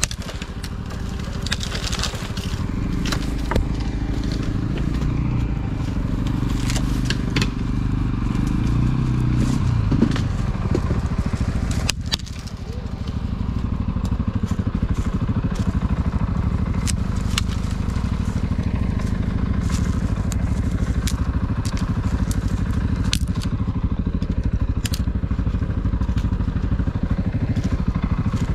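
ATV engine running under load off-road, with frequent sharp cracks and knocks over it. The engine works harder from about three to ten seconds in, drops off briefly around twelve seconds in, then runs steadily.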